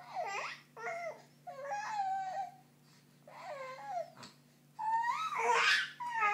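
Baby fussing in a series of about five short, high-pitched whiny cries with pauses between them. The last cry, about five seconds in, is the longest and loudest, with a strained, breathy edge.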